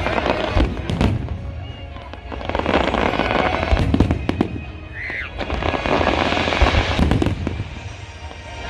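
Fireworks display: sharp bangs of shells bursting, mixed with swells of crackling that rise and fade every couple of seconds.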